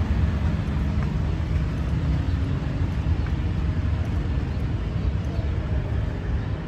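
Outdoor city ambience: a steady low rumble with no distinct events.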